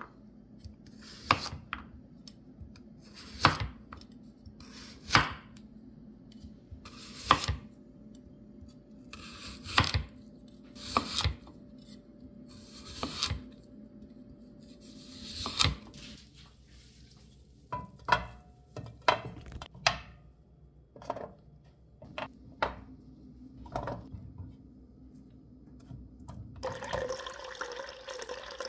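A chef's knife slicing through a small white radish and striking a wooden cutting board, one sharp cut every couple of seconds, then quicker, lighter knocks. Near the end, water runs into a glass measuring cup.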